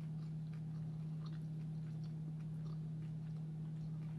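Chewing a crunchy fried seafood egg roll: faint, scattered small crunches and mouth clicks over a steady low hum.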